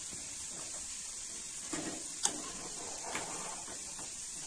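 Faint, steady sizzle of pirandai (adamant creeper) stems in hot sesame oil in a kadai, with one sharp clink of the steel ladle about two seconds in and a softer one a second later as the pieces are lifted out. The oil has settled to a quiet sizzle, which the cook takes as the sign that the pirandai is fully fried.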